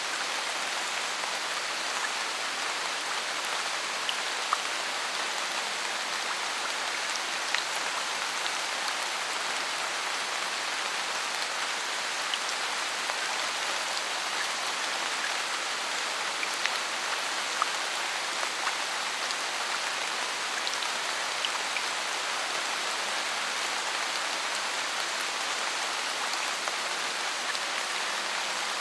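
Steady rain falling on forest leaves, an even hiss with scattered individual drips ticking louder now and then.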